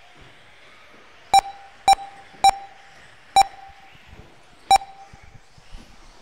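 Five short electronic beeps of the same pitch at irregular intervals: an RC race lap-timing system beeping as cars cross the timing line. A faint steady hiss lies under them.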